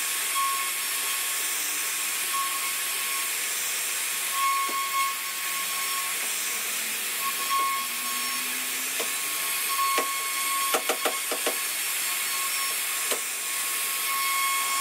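CNC router's HQD spindle running at high speed while its bit carves a relief pattern into a wooden panel: a steady high hiss with a faint whine that comes and goes. A quick run of about five sharp ticks falls about eleven seconds in.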